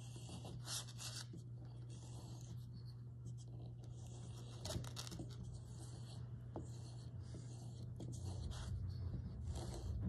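Soft, scratchy rubbing strokes of a woodcarving V-tool being drawn along a strop, polishing the edge of a tool that has gone dull. A steady low hum sits underneath.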